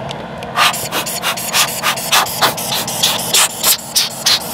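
Airbrush spraying surfacer primer in short, sharp hissing puffs, about three a second, starting about half a second in.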